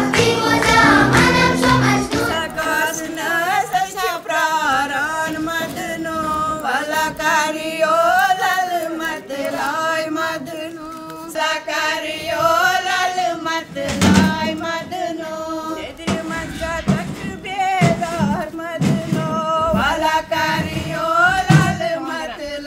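A group of women singing a traditional Kashmiri wedding song together, one slow wavering melody sung in unison. One louder knock sounds about halfway through.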